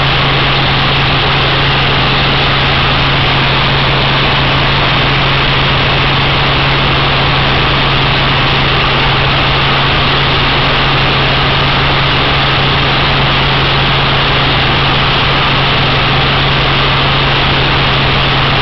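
Small helicopter in flight, heard from inside the cabin: a loud, steady drone of engine and rotor, a constant low hum under an even rushing noise.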